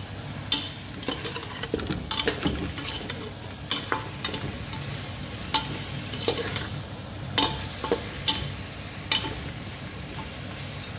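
Mutton pieces sizzling as they fry in a pressure cooker, stirred with a metal spoon that scrapes and clinks against the pot in sharp knocks about once a second.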